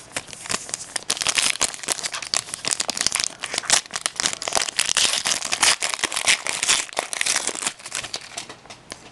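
A hockey card pack's plastic wrapper being opened and crumpled by hand: dense crinkling that thins out about a second before the end.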